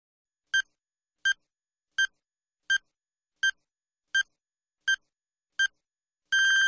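Countdown timer sound effect: eight short electronic beeps, evenly spaced about three-quarters of a second apart, then a longer beep at the same pitch starting near the end.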